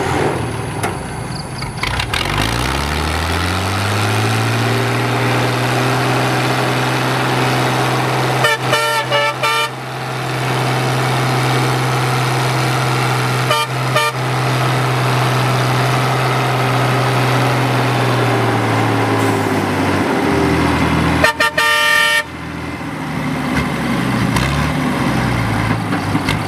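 Fiat 850 tractor's diesel engine running under load: its pitch climbs as it picks up speed, holds steady, then falls off near the end. A vehicle horn toots briefly three times, about a third of the way in, about halfway and near the end.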